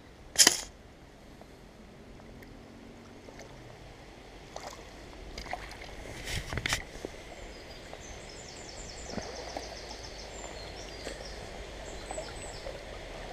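River water running steadily, with a sharp knock about half a second in and a few softer knocks and clatters a few seconds later. A run of quick, evenly spaced high chirps comes a little past halfway, and a few more near the end.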